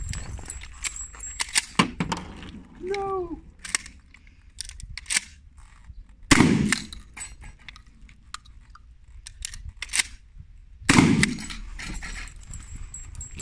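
Two loud shotgun blasts about five seconds apart, each followed by a short echo, fired at steel knockdown targets. Lighter sharp clicks and knocks come before and between them.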